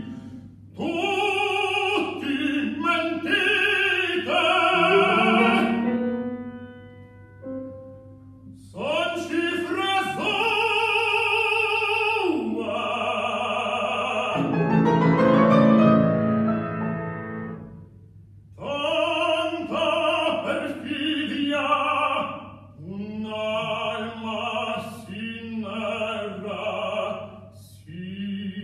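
Operatic tenor voice singing phrases with a wide vibrato, accompanied by a grand piano. In the pauses between phrases the piano carries on alone, with a rising figure about halfway through.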